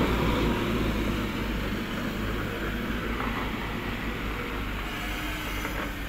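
Manitou telehandler's diesel engine running as the machine drives off, a steady rumble that eases slightly in level.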